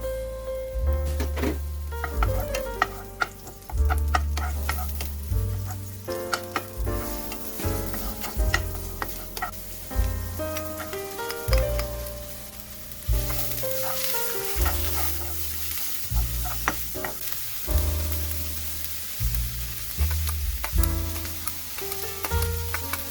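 Food sizzling as it is stir-fried in a pan, with a spatula clacking against the pan now and then; the sizzle grows louder about halfway through. Background music plays throughout.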